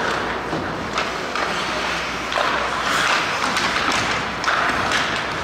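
Sounds of ice hockey play in an arena: skates scraping the ice in short hissing strokes, with a few sharp knocks of sticks or puck, over a steady background of the rink and crowd.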